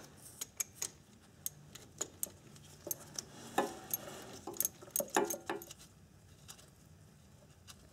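Ratchet wrench with a socket backing out a 10 mm bolt on a transmission case: a series of light, irregular metal clicks that stop about six seconds in.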